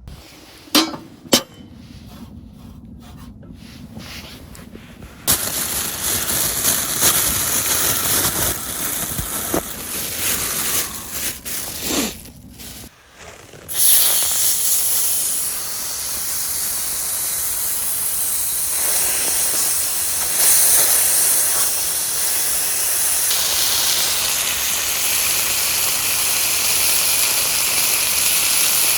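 Food cooking over a wood fire with a steady sizzling hiss, which starts about five seconds in, breaks off briefly, then comes back louder and holds. Two sharp knocks sound about a second in.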